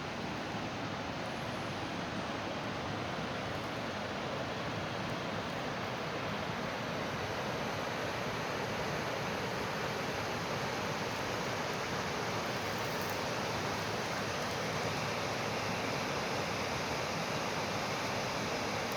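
Mountain torrent rushing steadily over rocks, a continuous even roar of water.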